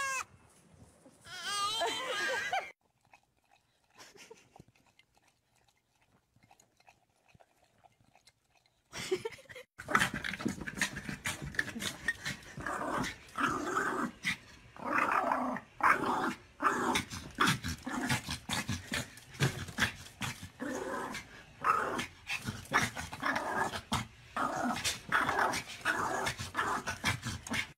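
A young goat bleats near the start. After several seconds of near quiet, a small dog barks and growls in rapid, repeated yaps until the end.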